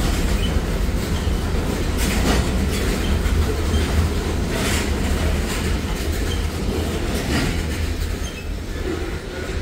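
Freight train tank cars rolling past on the rails: a steady rumble broken by sharp wheel clanks every second or two, easing off slightly near the end as the last car goes by.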